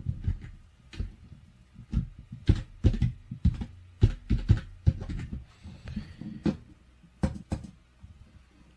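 Typing on a computer keyboard: about twenty irregular key taps, some heavier than others.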